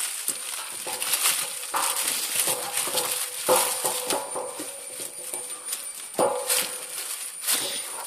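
Crumpled aluminium foil crinkling and rustling as young kittens scramble and wrestle on it, with short kitten mews a few times.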